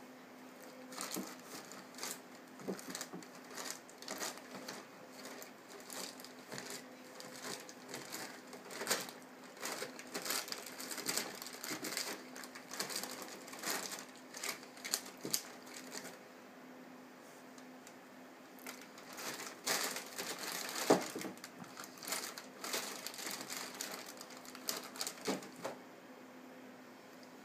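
Thin plastic bag crinkling and crackling in irregular bursts as a cat chews and paws at it, with a pause of a couple of seconds past the middle.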